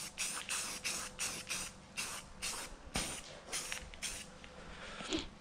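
Rust-Oleum satin granite aerosol spray paint can spraying plastic trim panels in many short hisses, about three a second.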